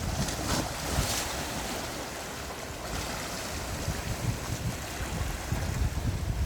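Gentle sea waves washing in, with a brighter surge about a second in, and wind buffeting the microphone.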